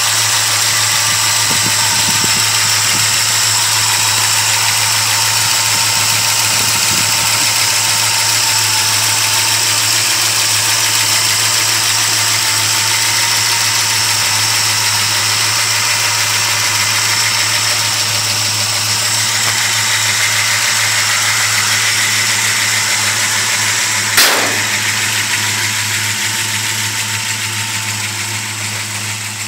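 Ford 428 cubic-inch FE big-block V8, bored, with a mild cam, a Holley 750 carburettor, headers and Magnaflow exhaust, idling steadily. A single sharp click comes about three-quarters of the way through, and the engine sound eases off a little near the end.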